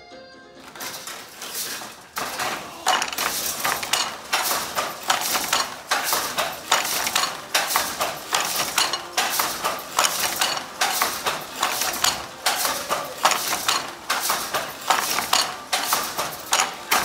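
Wooden floor loom clacking in a steady rhythm as the weaver works the shuttle and bangs the beater against the weft, about three sharp strokes every two seconds, starting about a second in.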